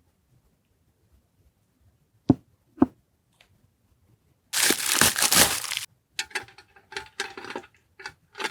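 Two sharp taps, then stationery packaging being torn open and crinkled: a loud crackling tear of about a second and a half, followed by several shorter crinkles as the wrapper is handled.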